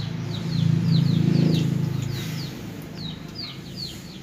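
Birds chirping: short high chirps that fall in pitch, two or three a second. Under them is a low rumbling noise that swells about a second in and fades again.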